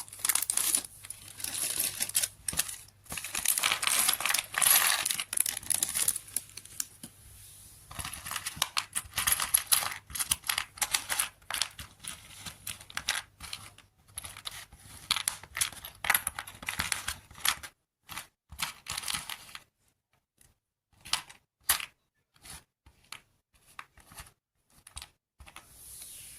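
Hands unpacking and fitting together a small toy kit: packaging crinkling and rustling, with small plastic pieces clicking and tapping. The handling is busy for most of the time, then thins to a few separate clicks in the last third.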